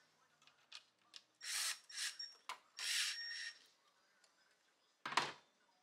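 Cordless driver running in two short bursts, backing out the screws of the intake's hose clamps, then a single knock near the end.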